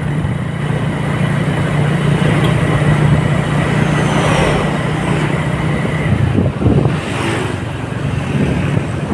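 Road traffic heard from a moving vehicle: a steady low engine hum with tyre and road noise, swelling as a truck passes close in the opposite lane about four seconds in and as another vehicle goes by near seven seconds.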